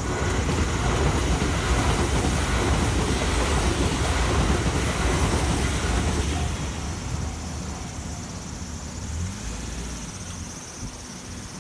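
Tobu Isesaki Line electric train passing over a level crossing: a loud rumble of wheels on rail through the first few seconds that fades away from about six seconds in.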